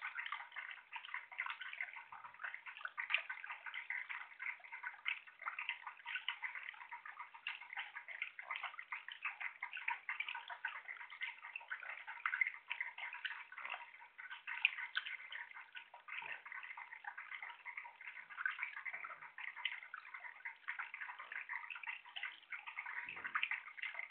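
Small electric tabletop bubbler fountain running strong, its jet bubbling up through an artificial rock and splashing into a ceramic dish: a steady, dense patter and trickle of water.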